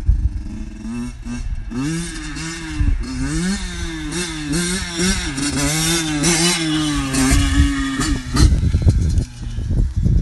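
Motorcycle engine revving, its pitch rising and falling over and over as the throttle is worked, from about a second in until near the end, when it stops and only a low rumbling noise remains.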